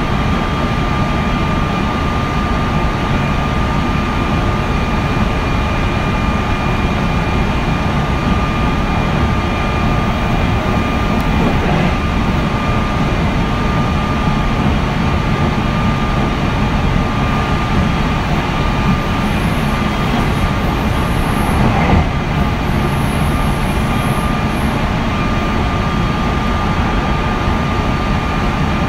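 Meitetsu 3100 series electric train car with a Toshiba IGBT inverter, running at steady speed and heard from inside the car. The wheels on the rails make a steady rumble, with a steady high tone over it and a single knock about 22 seconds in.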